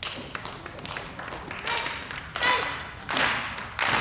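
Scattered handclaps from a small audience, with a few short shouts about halfway through and near the end.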